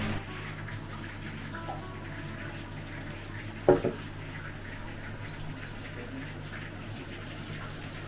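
Steady sizzle of a pork leg deep-frying in hot oil. A single short, loud sound cuts in about halfway through.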